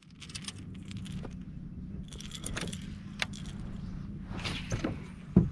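Light jangling and clicking over a steady low hum, with a sharper knock about five seconds in.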